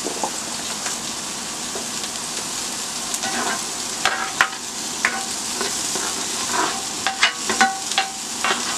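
T-bone steak sizzling as it sears in hot avocado oil in a cast iron skillet, a steady hiss. From about three seconds in, a utensil scrapes and clicks against the pan now and then.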